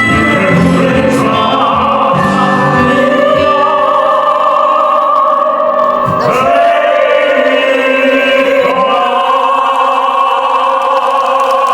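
Classical singers singing together in harmony in the closing bars of a song, holding long notes. The chord shifts a few times and settles into a long final held chord near the end.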